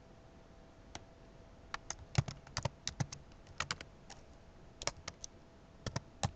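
Computer keyboard typing: irregular keystrokes in short runs, starting about a second in.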